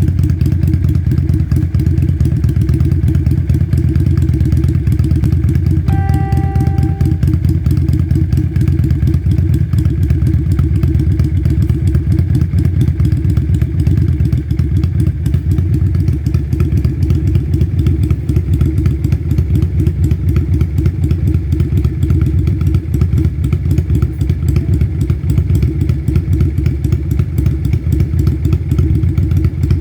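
A Yamaha Virago's V-twin engine, converted to a single carburettor, running steadily with a loud, even exhaust pulse and no revving. A short, pitched tone sounds for about a second, about six seconds in.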